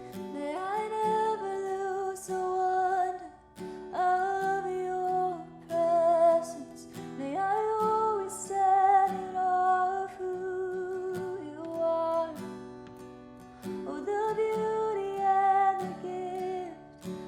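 A woman singing a slow worship song in drawn-out phrases, with vibrato on the held notes, over a strummed acoustic guitar.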